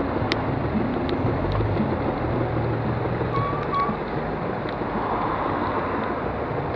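Steady rushing noise of wind on a moving microphone mixed with traffic and tyres on a wet road, with a few faint sharp clicks.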